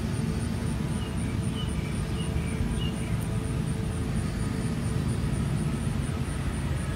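Steady low outdoor rumble, like wind or distant traffic, with a few faint high chirps over it.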